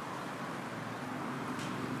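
Steady city street noise: a constant hum of traffic with no single event standing out.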